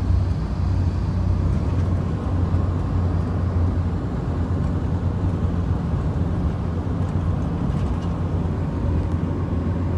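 Steady in-cab drone of a 2012 Chevrolet Duramax diesel pickup driving at road speed: engine and tyre noise heard from inside the cab.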